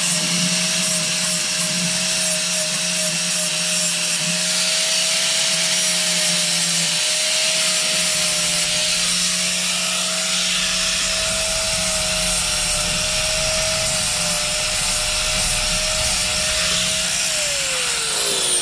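Power grinder cleaning up cut spot welds on sheet-metal body panels: a loud, steady abrasive grinding over a constant motor whine. Near the end the tool is let off and the whine falls as it spins down.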